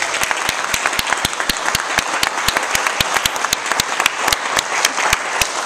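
A congregation applauding, with one pair of hands clapping close by, loud and evenly spaced at about four to five claps a second.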